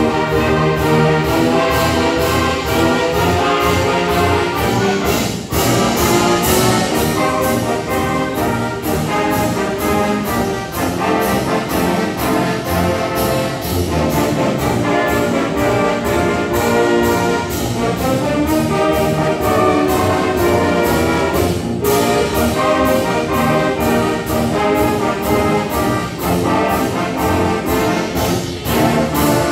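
Middle school concert band playing, brass to the fore, over a steady beat of about two strokes a second.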